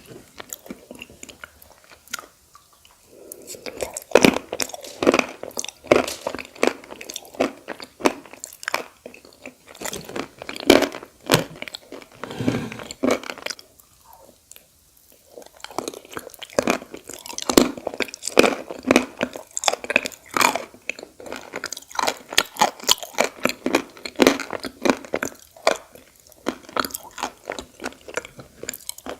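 Close-up crunching and chewing of edible clay, rapid irregular bites and crunches, with two short pauses, one a couple of seconds in and one about halfway.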